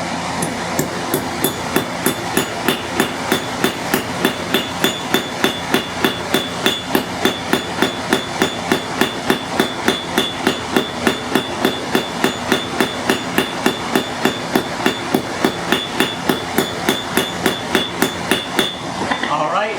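Rapid, even blows of a sharpened cross-peen hammer texturing a steel leaf on the edge of an anvil, about three strikes a second, each with a short metallic ring. The hammering stops near the end.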